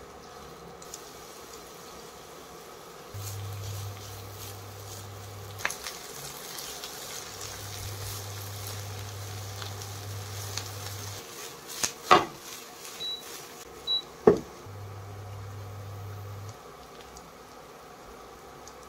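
Sliced onions and capsicum sizzling as they are stir-fried in a nonstick pan, under a low hum from the induction cooktop that cuts in and out several times. A few sharp knocks of the spatula against the pan stand out, the loudest about two-thirds of the way through, along with two short high beeps.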